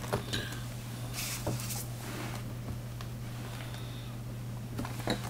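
Quiet room tone with a steady low hum, faint rustling, and a couple of light knocks near the end as hands move around a small plastic box on a desk.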